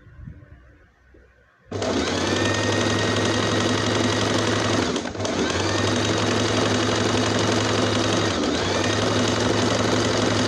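Electric sewing machine stitching steadily, starting about two seconds in with brief breaks twice along the way. It is stitching down a folded half-inch edge.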